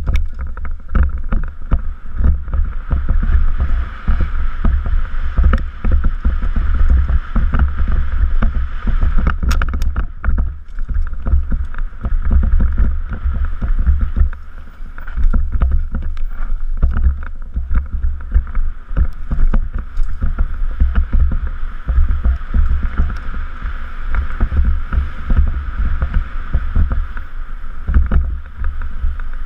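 Downhill mountain bike running fast over a rough dirt trail, heard from a helmet camera. Heavy wind rumble on the microphone mixes with a constant rattle and knocking from the bike over the bumps. It starts suddenly as the rider drops out of the start gate.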